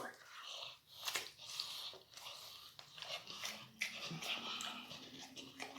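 A person chewing food, faint, with scattered soft clicks and mouth noises.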